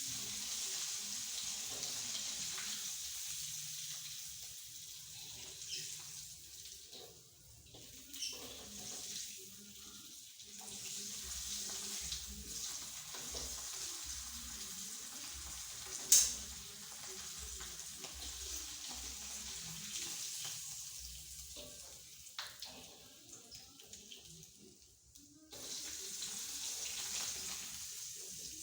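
Hot oil sizzling in a frying pan where tempe and salted fish are being deep-fried. The sizzle fades for a few seconds midway and returns. A single sharp clack about 16 seconds in is the loudest moment.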